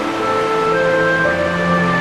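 Background music of slow, held chord notes, with a low bass note coming in partway through.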